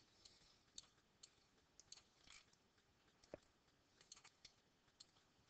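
Near silence with a dozen or so faint, irregularly spaced computer mouse clicks, and one slightly louder dull tap about three seconds in.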